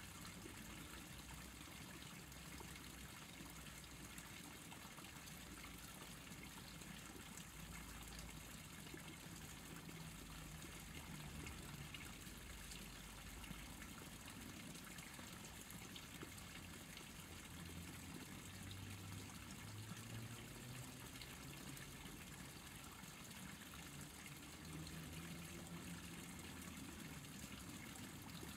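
Faint, steady trickle of stream water, under a low, slowly wavering rumble.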